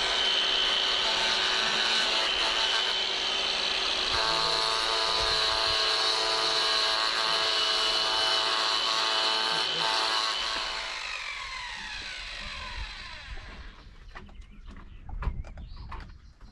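A hand-held electric power tool runs steadily with a high whine, then is switched off about ten seconds in and winds down, its pitch falling over a few seconds. A few light knocks follow near the end.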